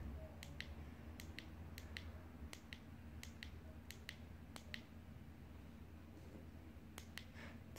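Faint, irregular clicks, a dozen or more, of a small five-way OSD menu joystick being pushed again and again to step the camera's shutter setting through its values.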